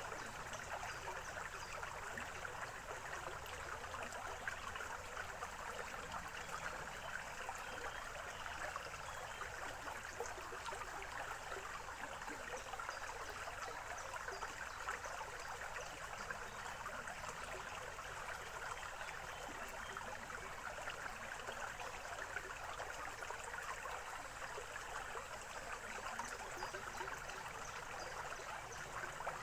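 Small forest stream babbling steadily over stones, an even trickling and gurgling water sound.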